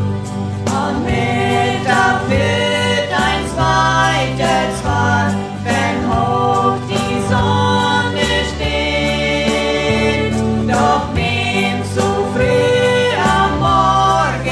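Two women singing a German song together over an instrumental backing of held low chords and a light steady beat.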